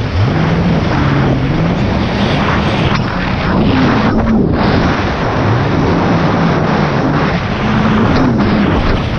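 Jet ski engine running at speed, its pitch rising and falling several times as the throttle is worked. Under it runs a loud rush of wind and water spray.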